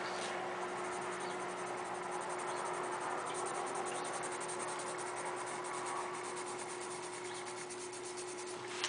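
Colored pencil rubbing steadily on paper as an area is shaded in.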